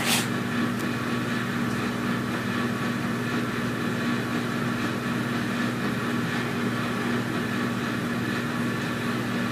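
Steady electrical hum with a hiss, as from a running kitchen appliance, flat in level throughout, with a sharp click right at the start.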